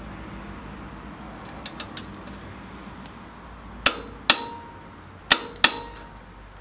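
Metal-on-metal tool work at the steel crash bar's mounting bolt on a Harley-Davidson Softail Fat Bob: a few faint ticks, then four sharp metallic clicks in two pairs, each with a brief ring.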